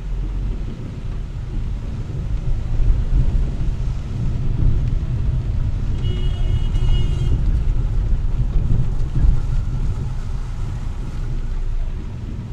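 A car driving on wet city streets, heard from inside the cabin: a steady low rumble of engine and road noise. A brief high-pitched tone sounds about six seconds in.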